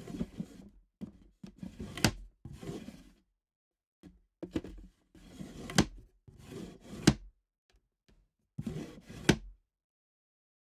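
Wooden box cover opened and closed repeatedly: short scrapes of wood on wood, some ending in a sharp wooden knock as the lid shuts, four knocks in all, the loudest about two seconds in and the last one about nine seconds in.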